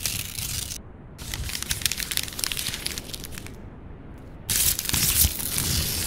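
Paper crumpling and tearing, as a series of crackly rustling bursts with short pauses between them; the loudest tear starts abruptly about four and a half seconds in.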